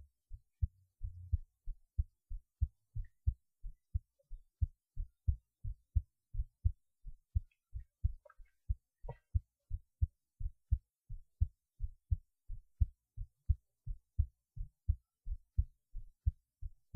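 A person's heartbeat recorded with the person lying on their left side: a steady, even rhythm of soft low thumps, about three a second.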